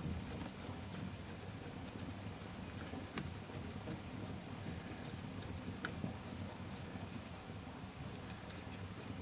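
Faint, scattered small metallic clicks and ticks of bolts being started by hand into the axle flange on a full-floating rear hub, with a couple of sharper clicks about three and six seconds in, over a low background rumble.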